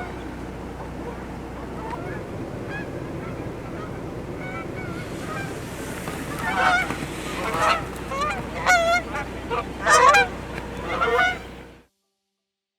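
Canada geese honking. The calls are faint and scattered at first, then grow louder and come thick and fast over the second half, before cutting off abruptly near the end.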